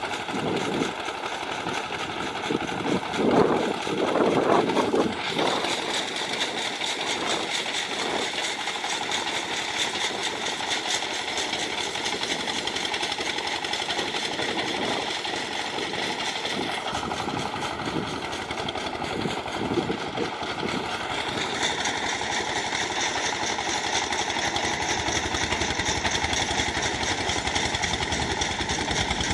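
Engine-driven rice threshing machine running steadily. It surges louder and unevenly in the first few seconds, and its tone shifts about five seconds in and again about twenty seconds in.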